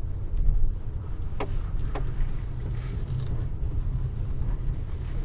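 Low, steady engine and road rumble heard inside the cabin of a supercharged Pontiac Grand Prix GTP as it drives, with two sharp clicks about a second and a half and two seconds in.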